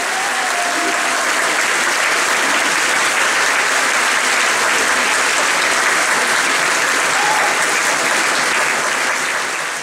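Theatre audience applauding steadily, a dense sustained round of clapping at the end of a dance performance.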